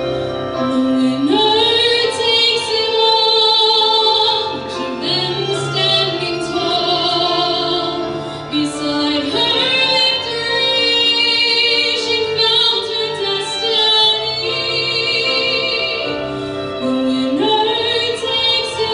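A solo female voice singing a slow ballad over instrumental accompaniment, holding long notes with vibrato in phrases that climb in pitch.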